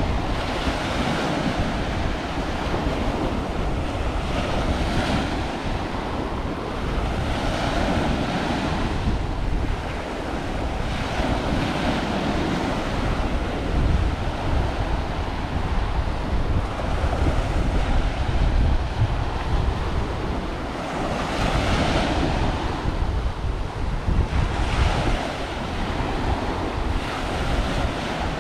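Small ocean waves breaking and washing up a sandy beach, the surf swelling every few seconds, with wind rumbling on the microphone.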